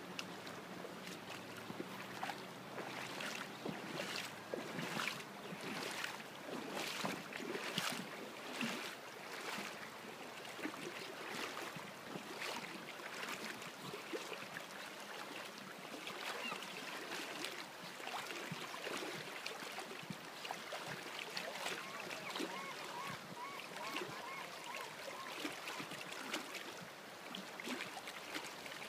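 Flowing river water, a steady rushing hiss, with a run of sharp knocks or splashes through the first ten seconds and a short wavering call about two-thirds of the way through.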